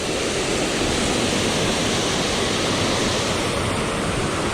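Steady, loud rush of a mountain waterfall, an even wash of water noise without a break.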